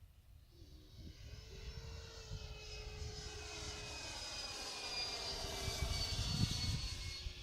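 Twin electric ducted fans of a scratch-built RC Boeing 777 model airliner whining as it flies past, growing steadily louder, with a swishing sweep in the sound as it passes overhead.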